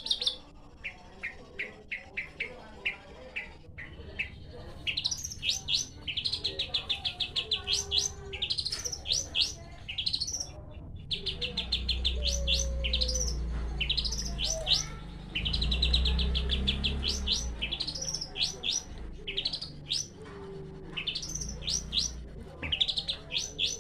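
Long-tailed shrike (cendet) singing: fast, rattling trills alternating with quick, sharp rising whistled notes, repeated throughout. A low rumble sits under the song for a few seconds in the middle.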